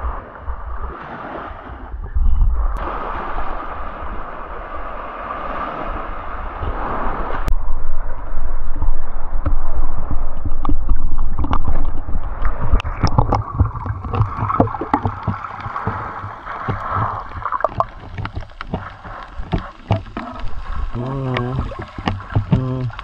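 Water splashing and sloshing around a kayak, with irregular sharp splashes in the middle stretch, over a heavy rumble of wind on the microphone.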